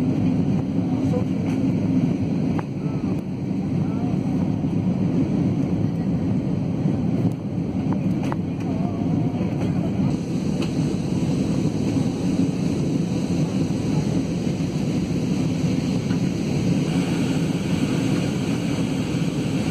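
Jet airliner cabin noise heard from a window seat during the climb after takeoff: a steady, low roar of the engines and rushing air.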